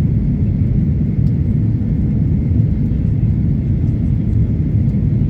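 Boeing 737 airliner during landing: a steady low rumble of engines and airflow, with a faint steady high whine above it.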